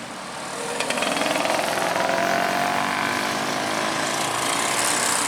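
A bus's diesel engine running close by with a rattling clatter, its note rising slightly as it pulls away.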